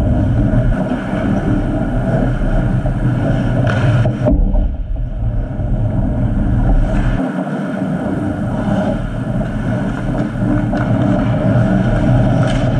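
Ice hockey game noise in an indoor rink: a steady low rumble, with two sharp knocks about four seconds in and near the end.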